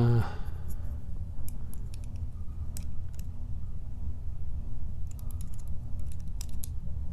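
Scattered light metallic clicks and ticks of small tools working the core of an American 6570 padlock as it is taken apart, over a steady low hum.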